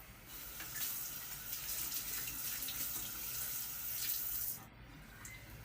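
Water running from a kitchen tap for about four seconds, then shut off abruptly.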